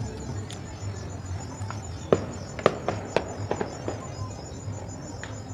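Fireworks going off: a quick string of about six sharp pops and cracks in the middle, the first two the loudest.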